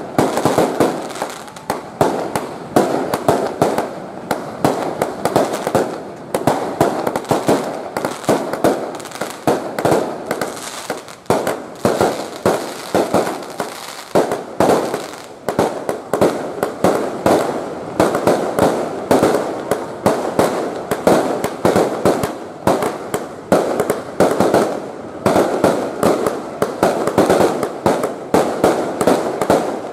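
Fireworks going off in a continuous barrage: rapid bangs and crackles, several a second, with no let-up.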